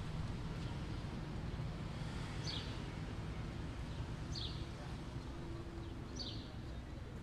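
A bird repeating a short, high, down-slurred chirp about every two seconds, over a low steady rumble.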